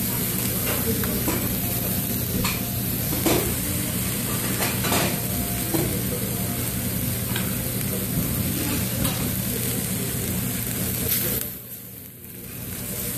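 Seafood and rice sizzling steadily in a hot stone bowl (dolsot), with scattered clicks and scrapes of a utensil stirring it. The level dips briefly near the end.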